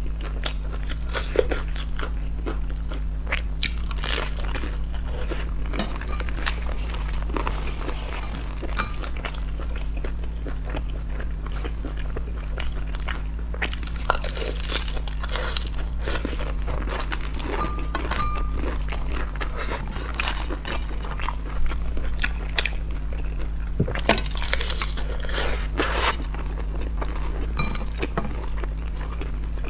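Close-miked crunching and chewing of pan-fried dumplings with a crisp lacy skirt: bites crackle in clusters, loudest about 14 s in and again around 24 to 26 s in, over a steady low hum.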